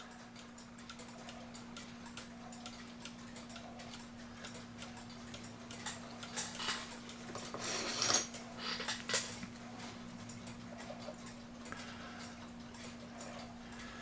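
August Schwer cuckoo clock movement ticking faintly while its double pendulum is adjusted by hand, with a cluster of louder clicks and knocks midway as the pendulum wire is handled. The clock keeps stopping, and the wire is being bent to put it in beat so it will keep ticking.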